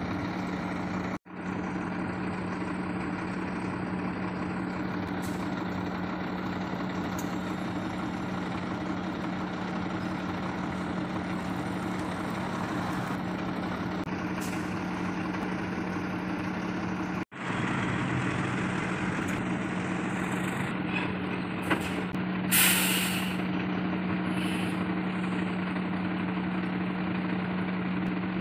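Heavy diesel truck engine idling steadily, with a short burst of compressed-air hiss from the air system about three-quarters of the way through.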